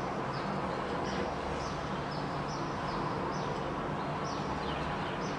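Soapy sponge scrubbing a plate, a short high swish with each back-and-forth stroke, about two or three a second and not quite even, over a steady low hum.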